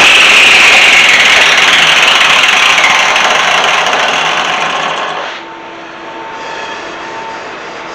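A high-speed power tool's whine falling in pitch as it winds down, then dropping off sharply about five seconds in, leaving a much quieter low hum.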